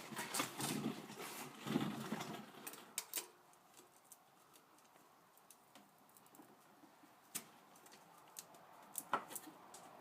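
Metal clicks and scraping of an oil filter wrench being fitted and worked on a spin-on oil filter under a car, busiest in the first three seconds, then a few single sharp clicks near the end.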